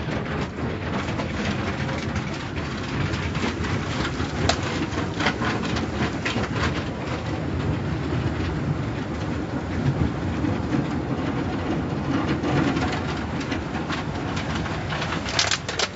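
Automatic car wash heard from inside the car: water spraying and wash brushes working over the windshield and body, a steady rumbling wash broken by frequent sharp knocks.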